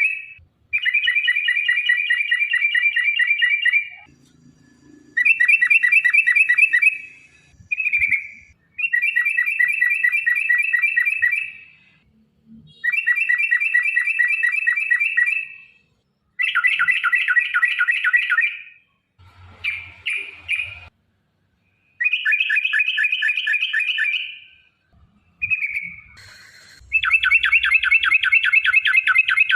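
Yellow-vented bulbul (trucukan) singing its long 'ropel' song: fast chattering runs of rapidly repeated notes, each run lasting two to three seconds, repeated over and over with short pauses between them. A rougher, harsher burst comes about two-thirds of the way through.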